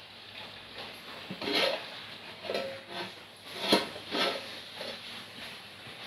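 Steel cooking-pot lid being handled and lifted off the pot: a few short clinks and scrapes of metal on metal, the sharpest a little past the middle.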